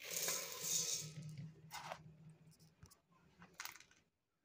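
Raw rice grains poured from a steel tumbler into a steel bowl of whole urad dal, a grainy hissing rattle lasting about a second and a half, followed by two short rustles of grain.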